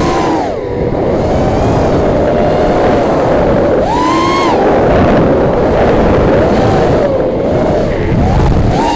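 Small multirotor drone's electric motors whining, the pitch swooping up and down as the throttle is punched, most sharply at the start and about four seconds in, over heavy wind rush on the drone's own camera microphone.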